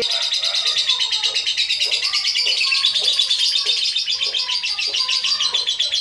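Lovebird ngekek: one long, unbroken, high-pitched chattering trill of very rapid notes, held at a steady loudness.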